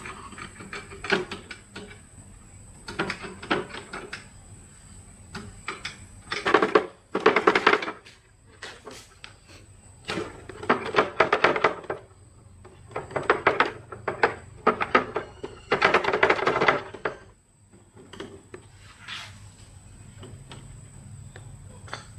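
Repeated bursts of rapid metallic clicking and scraping, each lasting about a second, from hand tools working on engine parts.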